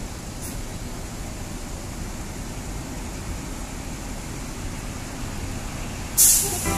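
Large intercity coach's diesel engine running as the bus moves slowly across the terminal, a low steady rumble. A short loud hiss comes near the end.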